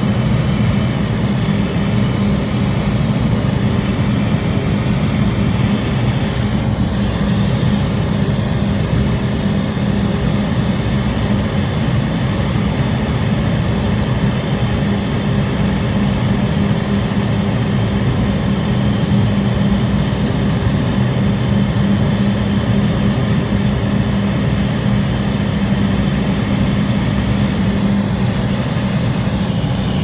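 Cabin noise inside a Cessna 208B Grand Caravan EX on final approach: the single Pratt & Whitney PT6A-140 turboprop and propeller giving a loud, steady drone with a deep hum.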